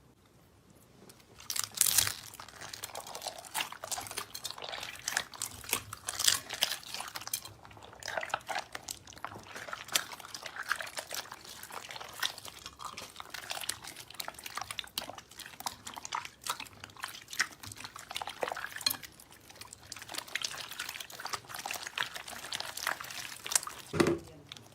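Slime being squeezed and stretched by hand close to the microphone: irregular wet squelching and sticky clicking pops, starting about a second and a half in.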